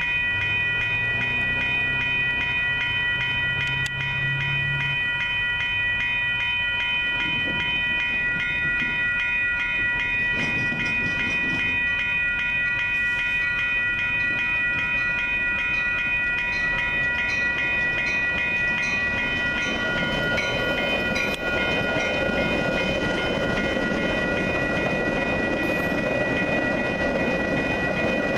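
Railroad grade-crossing bell ringing in a steady repeating beat. From about twenty seconds in, the rumble of an approaching Metra bilevel commuter train grows as it reaches the crossing.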